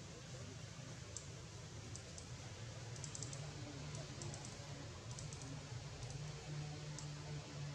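Faint short clicks, several in quick succession at a time, coming in small clusters every second or so over a steady low hum and hiss.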